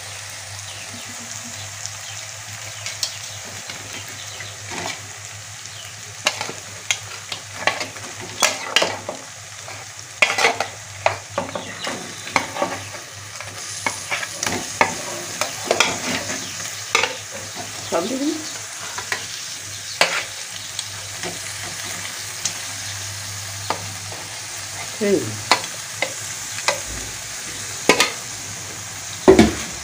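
Onion, chilli, garlic paste and tomato sizzling in hot oil in a metal kadai, with a steel spatula scraping and clinking against the pan as it is stirred. Raw chicken pieces are tipped into the frying masala about halfway through.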